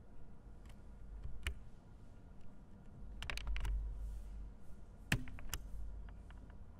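A slide-advance button clicked several times at irregular intervals, with a quick flurry of clicks in the middle, as the slide fails to advance.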